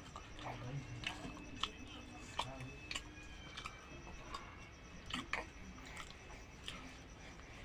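Someone chewing and biting into gulgula, fried sweet dough balls, with irregular soft mouth clicks.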